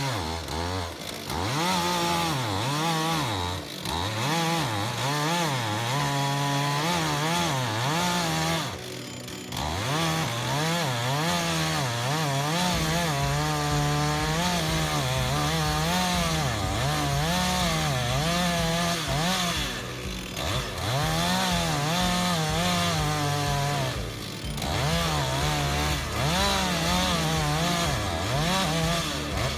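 A chainsaw running under cutting load, its engine pitch rising and falling over and over, about once a second, with a few short breaks.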